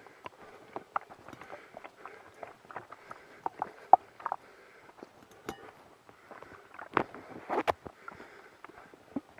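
Footsteps along a forest trail with irregular knocks, clicks and rustling from carried gear. The sharpest knocks come about four seconds in and twice near seven seconds.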